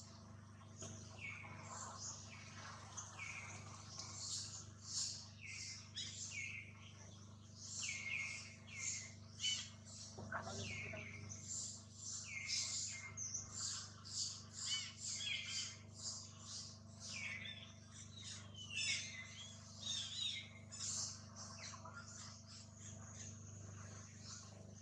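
Many short, high-pitched chirping calls, each a quick falling note, repeated over and over with a steady low hum beneath.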